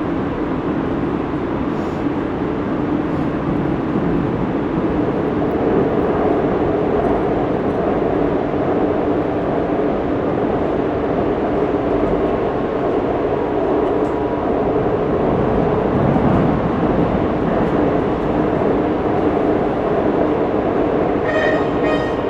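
Steady rumble and hum of a Korean subway train running between stations, heard from inside the passenger car. A short musical chime starts right at the end.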